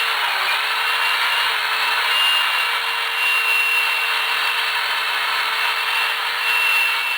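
An electric power tool running steadily on wood, its motor whine dipping briefly under load about half a second in.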